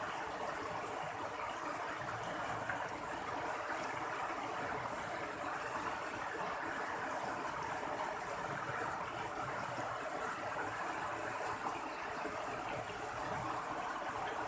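Water running and splashing in a stream: a steady, even gurgling rush with no breaks.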